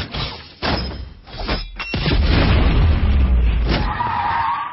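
Action-film trailer sound effects: heavy booms and crashes, three sharp hits in the first two seconds followed by a sustained low rumble, with a wavering high whine near the end.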